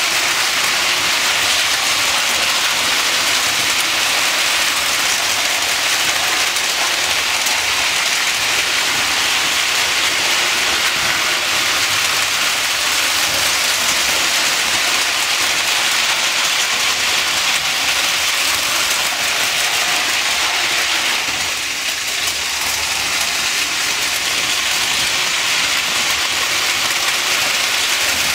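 Several Lionel O-gauge toy trains running at once on three-rail tinplate track: a steady, hissing rolling clatter of wheels on the steel rails, dipping briefly about three-quarters of the way through.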